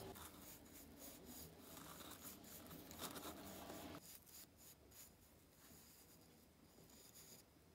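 Faint scratchy swishing of a natural-bristle brush stroked over a turned wooden pepper grinder body, brushing on a wet finish. The strokes are denser at first and grow quieter after about four seconds.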